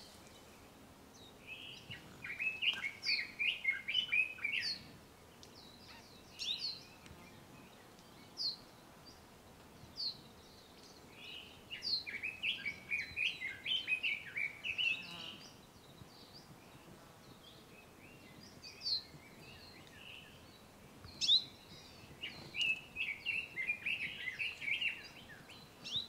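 Forest songbirds singing: three bouts of rapid warbled trills, each a few seconds long and about ten seconds apart, with scattered single high chip notes between them.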